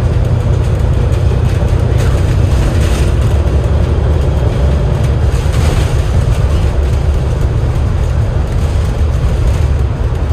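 Inside a Cummins L9E-engined Enviro500 MMC double-deck bus on the move: a steady low diesel rumble with road noise, and a few light rattles.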